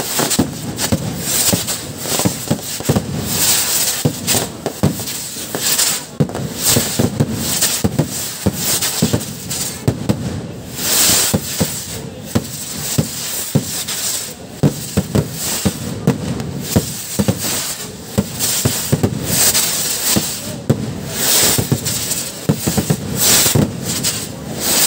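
Fireworks and firecrackers going off nonstop: a dense, irregular run of sharp bangs and crackles with no pause.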